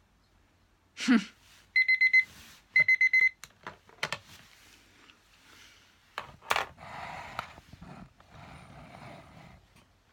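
Digital timer alarm beeping: two quick runs of four high beeps, signalling that the sheet-mask time is up. Rustling and handling noises follow.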